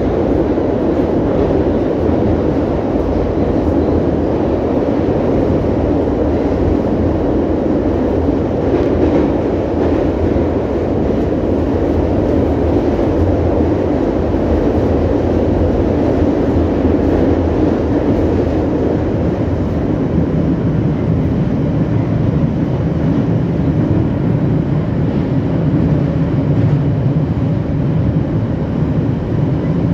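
Metro train running at speed between stations, heard from inside the passenger car: a steady, loud rumble of wheels and motors, with a low hum that grows stronger about two-thirds of the way through.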